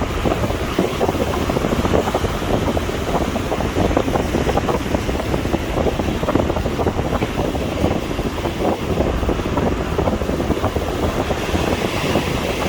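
Sea waves washing on a beach, mixed with a steady rumble of wind on the microphone.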